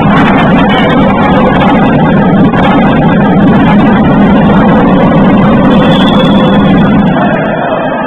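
Loud, steady crowd din in a basketball hall, with scattered sharp clicks through it, easing off near the end.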